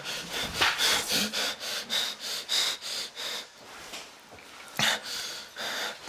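People panting hard after running, fast rasping breaths about three a second that ease off briefly, then a sudden louder burst about five seconds in.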